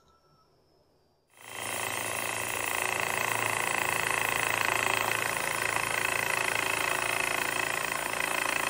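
A wet lapidary trim saw cutting through a chunk of fancy jasper, starting abruptly about a second in: a steady grinding whine over a low motor hum as the stone is pushed through the blade by hand.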